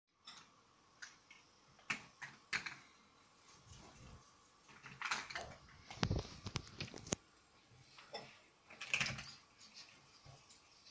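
Large plastic building blocks clicking and knocking against each other as they are handled and pressed together, in irregular clicks with a busier run of them about six to seven seconds in.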